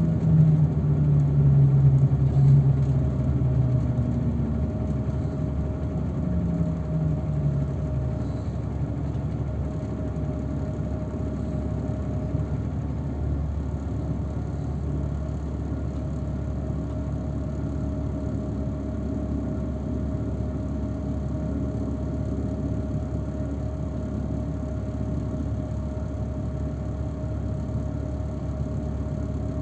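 Engine and road noise of a moving shuttle vehicle heard from inside. The engine note drops and shifts over the first several seconds, then settles into a steady, even rumble with a faint constant hum.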